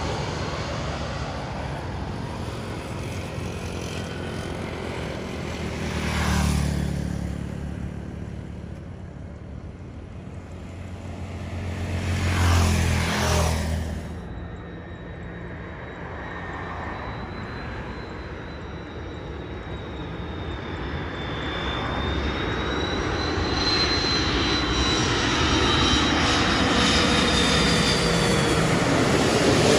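Jet airliners on landing approach: the engine noise of a departing-from-view narrowbody jet fades, broken by two short louder swells around six and thirteen seconds in. Then a China Airlines Airbus A330 approaching low overhead grows steadily louder, with a high engine whine, and is loudest near the end.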